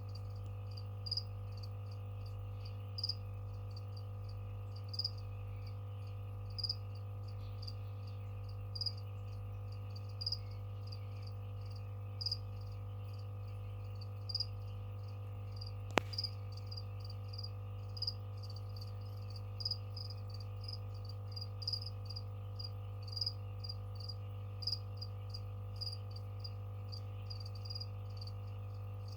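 Feeder crickets chirping: short, high chirps every second or two, coming more often in the second half, over a steady low electrical hum. A single sharp click sounds about halfway through.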